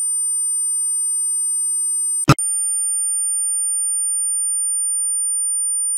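Steady 9000 Hz sine test tone, switching from the left channel to the right with a short click about two seconds in.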